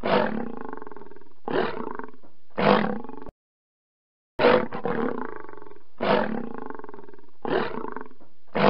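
An outro sound effect with a roar-like sound: a series of loud blasts, each starting sharply and trailing off. The series cuts off abruptly about three seconds in, and after a second of silence the same sequence plays again.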